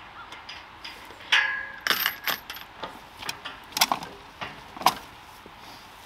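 Steel tube farm gate being worked open: its metal latch hardware rattles and clanks in a run of sharp metallic clinks and jangles, some with a brief ring, over about four seconds.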